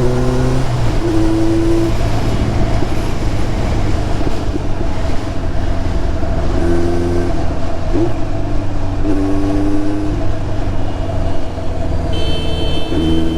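Kawasaki Z900's inline-four engine running steadily through an SC Project slip-on exhaust while riding, with road and wind noise. Near the end a cluster of high steady tones comes in over it.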